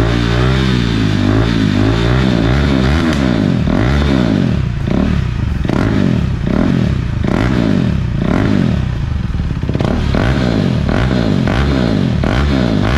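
A 2019 Husqvarna Svartpilen 401's single-cylinder engine revved over and over through an aftermarket mid pipe and slip-on silencer with no baffle fitted, the pitch rising and falling about once a second. Crazy loud and bangy without the baffle.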